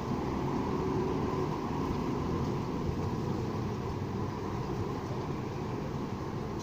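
Steady rumble of road traffic, an even low noise with no single vehicle standing out.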